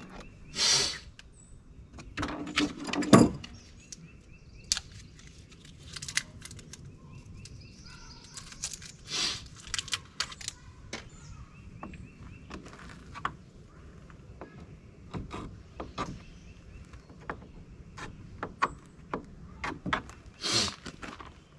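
Hands handling a plastic recovery board and metal mounting hardware on a truck tailgate: scattered clicks, knocks and brief scrapes, the loudest a clatter about three seconds in.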